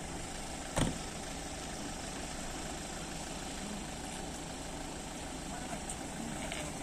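A vehicle engine idling steadily under indistinct voices, with one sharp knock about a second in.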